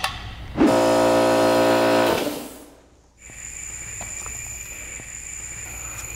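Compressed air flowing through a quick-connect air coupler into a laser-welded aluminum tank, pressurizing it for a leak test. Starting about half a second in, it is a steady buzzing tone for about a second and a half, then it fades away. After that comes a quieter steady hiss with a thin high whine.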